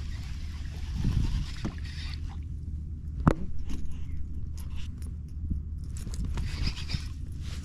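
Small knocks, ticks and scrapes of gear being handled aboard a fishing kayak, with a sharper knock about three seconds in, over a steady low rumble.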